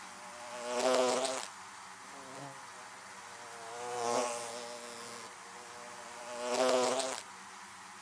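Honeybees buzzing at a hive entrance: a steady, pitched hum of many bees. Three times the buzz swells louder and fades: about a second in, mid-way, and near the end.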